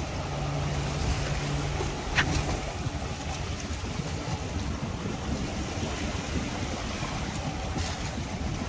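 Sea waves and wind noise at the shore, with a low steady motor hum for the first two seconds or so and a short sharp click about two seconds in.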